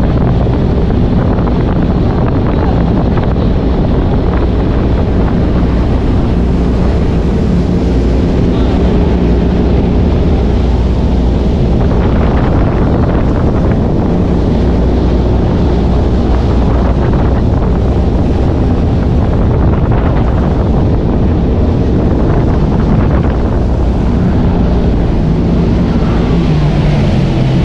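Jet ski engine running under way, with heavy wind buffeting on the microphone and water rushing past. The engine pitch shifts near the end.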